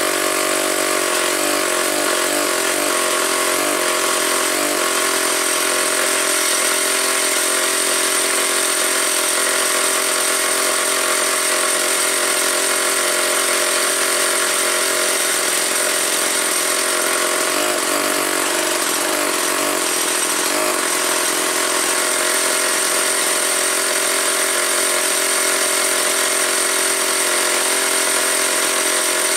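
Vintage McCulloch 250 two-stroke chainsaw engine running steadily, with a slight wavering in pitch about a second in.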